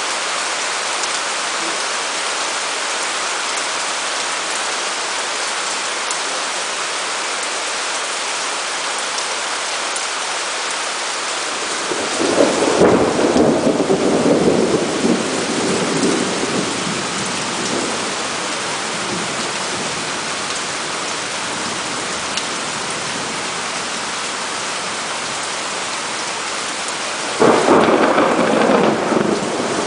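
Heavy rain falling steadily, with two rolls of thunder: one starting about twelve seconds in and rumbling for a few seconds, another beginning near the end.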